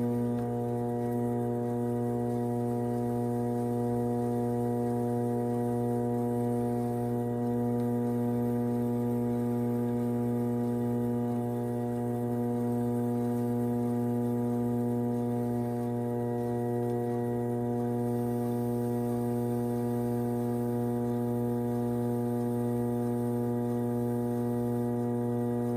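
Electric potter's wheel motor running with a steady, even hum of several held tones that does not change in pitch.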